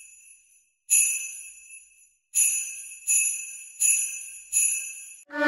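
Jingle bells shaken in about five separate jingles, each ringing briefly and fading before the next. Right at the end, the woodwinds of a school band come in with a held note.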